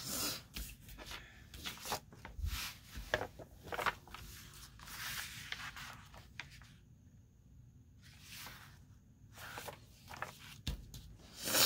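Sheets of printed paper being handled and slid over one another on a tabletop: irregular rustles and scrapes, with a quieter pause a little past the middle and a louder rustle near the end.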